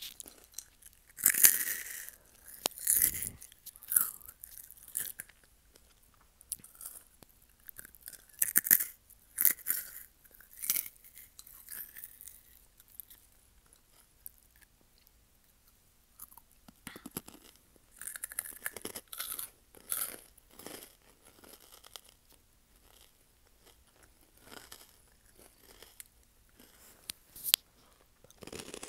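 Close-up chewing and crunching of a crunchy snack, in bursts of crackly bites and chews with quieter gaps between.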